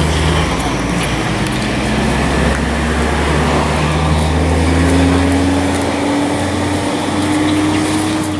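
A motor vehicle's engine running close by: a steady low hum whose pitch creeps slowly upward in the second half, cutting off suddenly.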